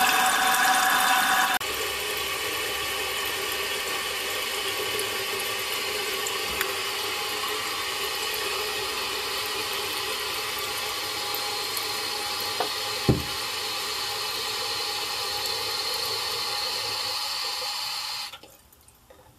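Toilet tank refilling after a flush: water running in through the old ball-float fill valve with a steady hiss, louder for the first second and a half, and one short knock about two-thirds of the way through. Near the end the hiss stops abruptly as the risen float ball shuts the valve off.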